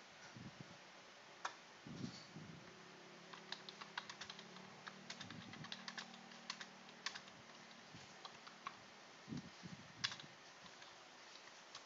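Typing on a computer keyboard: faint, irregular key clicks, with a faint low hum underneath for several seconds in the middle.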